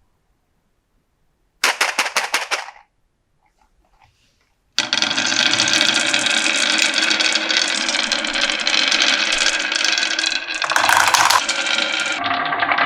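Marbles clattering down a wooden marble run. There is a short burst of rapid clicks, then from about five seconds in a dense, continuous rattle.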